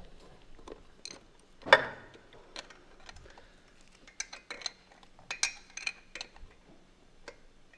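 Scattered light clicks and clinks of metal hand tools against engine parts, with one sharper clink a little under two seconds in and a cluster of small ticks a few seconds later.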